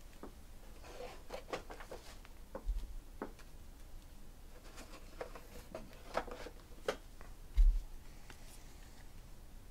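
Light handling sounds of trading cards and packs on a table: scattered small clicks and soft rustles, with two low thumps, the louder one near the end.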